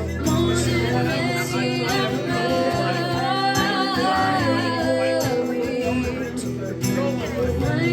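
A live band playing a song, with a voice singing over guitar accompaniment.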